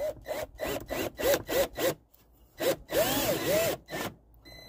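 Cordless drill driving a 2.5-inch screw through the mounting bracket into the wood of the house, pulsed on the trigger: about seven quick bursts, each a short rise and fall of motor pitch, then a longer run of almost a second.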